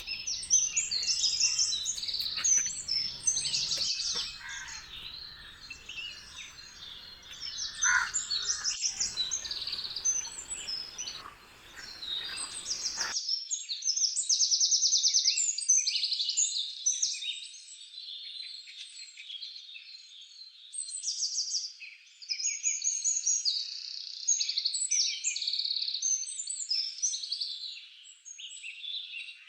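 A dense chorus of birds chirping and trilling, with many rapid high calls overlapping throughout. A faint lower background with a couple of soft clicks cuts out abruptly about halfway through, leaving only the birdsong.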